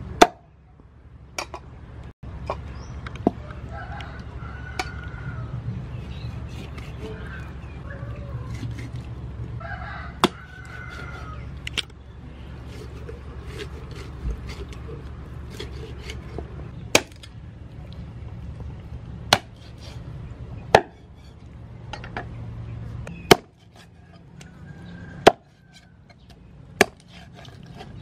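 Heavy kitchen knife chopping through a raw chicken onto a thick wooden chopping board: single sharp blows, irregularly spaced a second to a few seconds apart.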